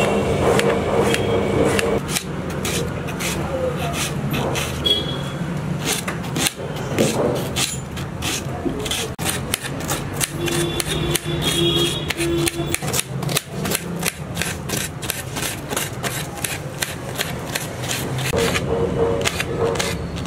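Knife chopping onions and then green chillies against a steel plate: a rapid, irregular run of sharp taps over a steady low hum, with voices in the background.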